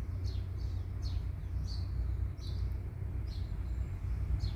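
A bird calling repeatedly: short, high chirps that sweep downward, over a steady low rumble.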